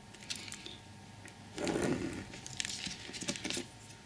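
Workbench handling sounds as a steel rule is lifted off a card roof sheet on a cutting mat: rustles and light knocks, the loudest about a second and a half in, followed by a few small clicks.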